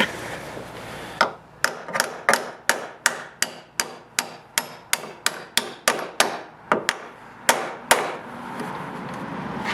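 A hammer striking a steel door hinge pin about eighteen times in a steady rhythm of roughly three blows a second, driving the pin down through new hinge bushings where it had been binding. The blows stop about eight seconds in.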